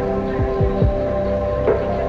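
Background music: held, sustained chords with a few deep, falling bass hits.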